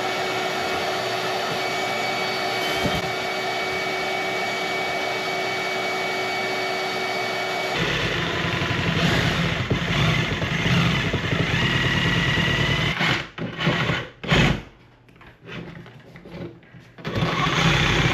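Power drill driving a large hole saw, about 3.5 inches: for about eight seconds the motor runs at a steady pitch, then the saw bites into the wall and the sound turns heavier and rougher. Near the end the cutting stops and starts in short spells before it resumes.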